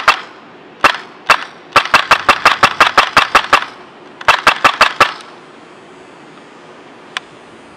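E&L AK-104 airsoft rifle with a Wolverine Inferno HPA engine firing: two single shots, then a rapid string of about a dozen sharp cracks at roughly six a second, then a shorter string of about six. It then falls quiet apart from one faint tick near the end.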